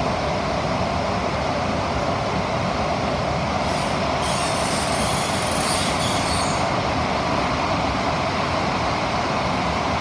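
SMRT CT251 metro train running at speed through a tunnel, heard from inside the carriage as a steady rumble and roar of wheels on rail. About three and a half seconds in, a high hiss joins for around three seconds.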